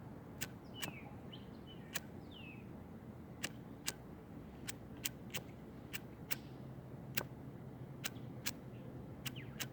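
A Zippo lighter filled with white gas camp fuel being struck over and over without relighting: a run of sharp, irregular clicks. Birds chirp faintly in the first few seconds.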